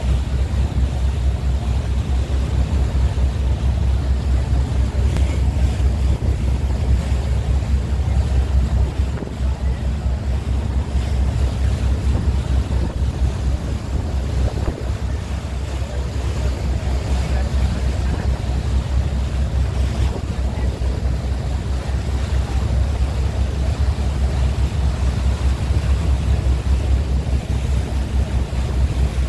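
Wind buffeting the microphone in a heavy, fluttering rumble, over the wash of choppy sea water.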